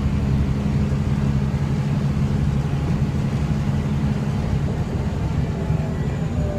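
Scania N94UB bus under way, heard from inside the passenger saloon: its rear-mounted nine-litre five-cylinder diesel engine runs under load over road and body noise. The engine note eases in the second half and drops in pitch near the end.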